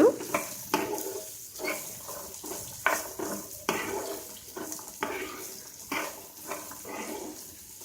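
A spoon stirring and scraping boiled chickpeas around a pan of hot oil tempering, a stroke every half second to a second, over a faint sizzle.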